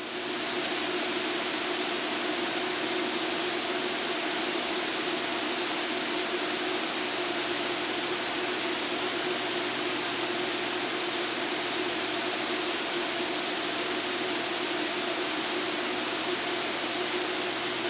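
Steady drone of an Extra 300L aerobatic plane's piston engine and propeller in level cruise, with rushing air, heard inside the closed cockpit. The pitch and level hold steady throughout.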